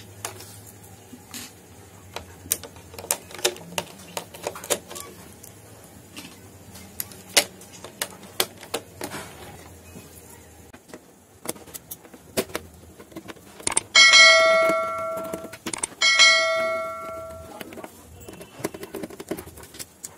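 Scattered clicks and taps of hands working plastic latches and parts inside a sheet-feed scanner. About fourteen seconds in, a bell rings twice, about two seconds apart, each ring loud and dying away over a second or so.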